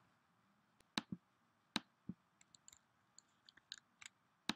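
Faint, sharp computer mouse clicks, irregularly spaced: a close pair about a second in, a few more with fainter ticks between, and the loudest click near the end.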